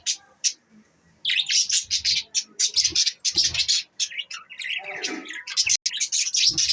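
Budgerigars chattering and chirping in rapid high warbles, with a short lull about half a second in.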